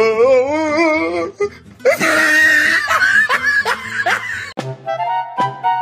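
Laughter and a warbling voice-like sound added over the clip, then music with held notes comes in near the end.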